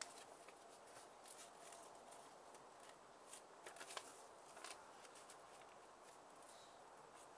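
Faint rustling and crinkling of a paper instruction leaflet being handled and worked onto the rings of a ring binder, with a few short crackles between about one and five seconds in.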